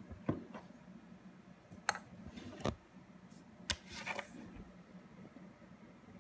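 Scattered sharp clicks from a laptop's keys and touchpad being worked, about half a dozen over several seconds with a short run of them near the end, over a faint steady hum.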